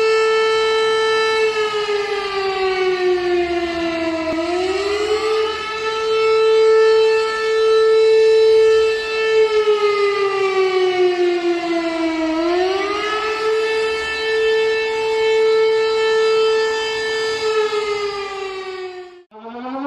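Civil defence warning siren sounding a steady tone that twice sags slowly lower and swings quickly back up, then sags a third time and stops just before the end.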